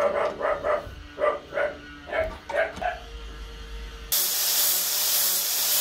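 A dog barking repeatedly in quick, short barks. About four seconds in, a loud steady hiss starts abruptly and cuts off suddenly about two seconds later.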